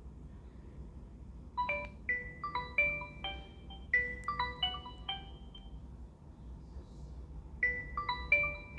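An Oppo A71 ringtone playing: a short melody of quick ringing notes begins about one and a half seconds in, stops for about two seconds, and starts over near the end as the tone loops.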